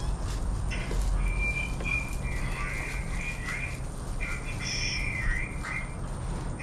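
High, wavering animal calls that come and go for several seconds, over a steady low rumble.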